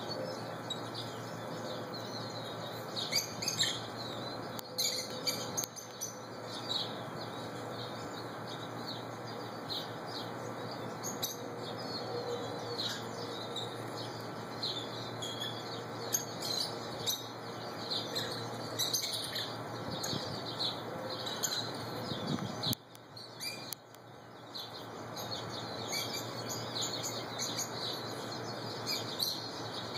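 A flock of rosy-faced lovebirds chirping continually, many short high calls overlapping. There is a brief lull about three-quarters of the way through.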